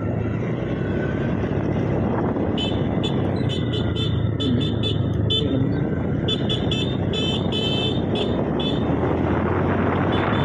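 Motorcycle riding along at a steady pace: a low engine hum under a rush of wind and road noise. About two and a half seconds in, a run of short high chirps starts, repeating about three times a second for some six seconds.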